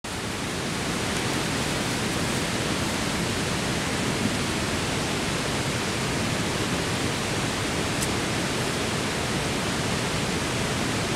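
A steady, even hiss of outdoor noise that spreads evenly from low to high pitch, with no distinct events or rhythm.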